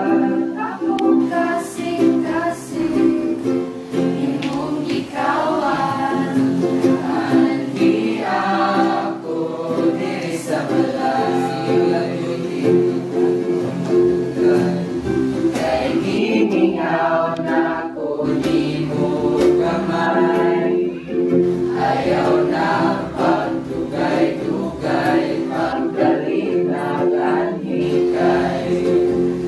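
A group of young voices singing a song together, accompanied by a strummed acoustic string instrument.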